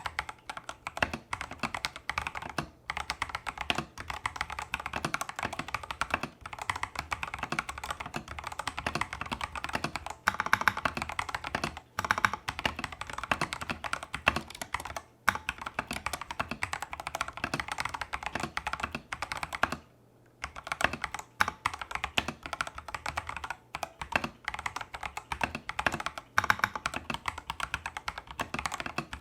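Fast, continuous typing on a Tester68 custom mechanical keyboard fitted with Holy Panda clone tactile switches and XDA-profile keycaps, in its stock, factory-lubed state, with a brief pause about twenty seconds in.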